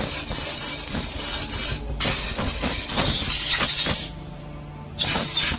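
Petrol sprayed under pressure into the opened pushrod and hydraulic tappet area of a Royal Enfield Classic 350 engine: a hissing spray in three long bursts, with a short break about four seconds in.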